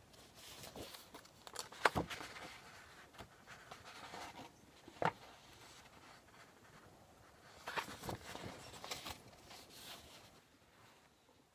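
Loose sheets of paper rustling faintly as they are handled and shifted, in two short spells, about two seconds in and again around eight seconds, with one sharp tap in between.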